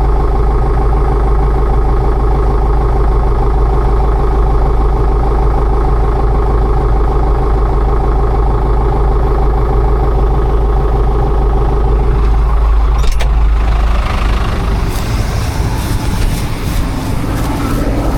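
Heavy farm-machinery diesel engine running steadily at an even pitch. About two-thirds of the way through there is one sharp click, and after it the engine sound turns noisier and less even.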